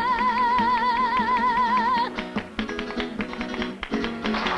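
Woman singing a flamenco song, holding a long note with a wide vibrato that ends about two seconds in, over flamenco guitar. After the note, the guitar carries on alone with strummed chords and sharp taps.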